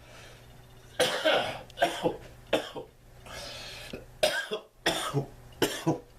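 A man coughing repeatedly: a string of short coughs in several clusters.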